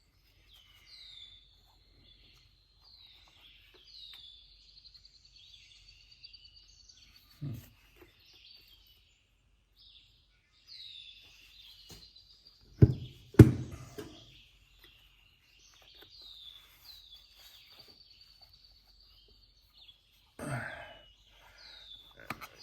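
A small bird singing over and over in short falling chirps. About 13 seconds in come two loud, sharp knocks from the mower wheel being worked back into place, with a lighter knock earlier and another short clatter near the end.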